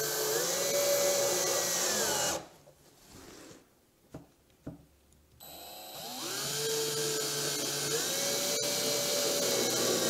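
Cordless drill-driver driving a screw through a metal stabiliser rail into the top of a chipboard cabinet side, its motor whine speeding up and then slowing as the screw seats, stopping about two seconds in. After a pause with a few faint clicks it runs again about five and a half seconds in for a second screw, rising in pitch and slowing again near the end.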